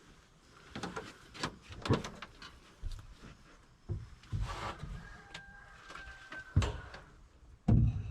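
A run of knocks, clicks and rattles, with heavy thumps near the end: people opening and climbing into a small deer blind.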